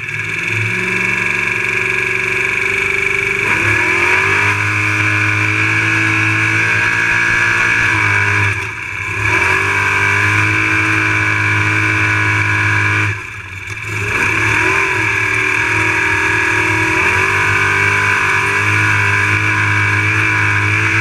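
Unlimited trophy truck engine held at high revs. The engine lets off briefly twice, about nine and about thirteen seconds in, and picks back up each time.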